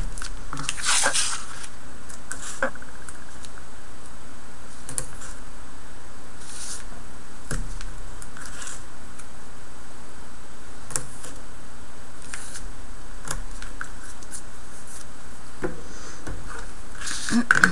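Hands pressing and rubbing strips of double-sided tape onto a cardstock panel on a cutting mat: scattered brief rustles and scratches of paper, a little louder near the end.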